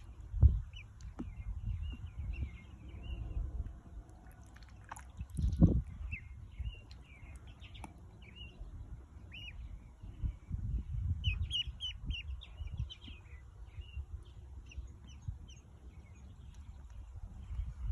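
Ducklings peeping in many short, high calls, busiest around the middle. Underneath runs a low rumble, with two loud bumps, one right at the start and one about five and a half seconds in.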